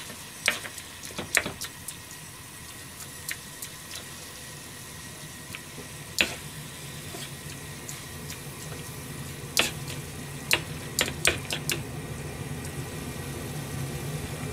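Metal ladle stirring soup in an aluminium saucepan on a gas burner, clinking sharply against the pan's side a dozen or so times, in clusters about a second in and again around ten to twelve seconds in. Under the clinks runs a steady low noise that slowly grows louder toward the end.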